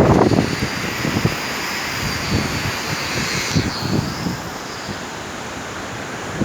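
Strong storm wind gusting over the microphone as low, uneven rumbles, the strongest right at the start, over a steady wash of rough sea surf.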